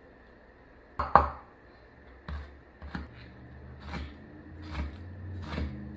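Chinese cleaver chopping soaked black fungus on a wooden cutting board. The hardest chop comes about a second in, followed by lighter strokes spaced about half a second to a second apart.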